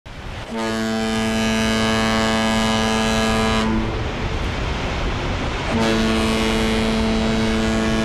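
A cruise ship's horn sounding two long blasts of about three seconds each, the second starting about two seconds after the first ends. A steady rushing noise runs between them.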